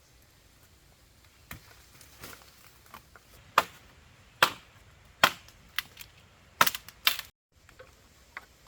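A series of sharp chopping strikes, about one a second, faint at first and loud from about three and a half seconds in.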